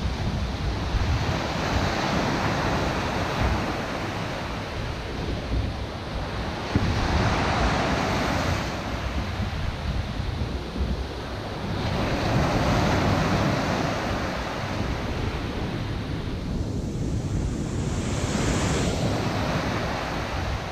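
Surf breaking and washing up the beach, swelling and fading about every five seconds, with wind noise on the microphone.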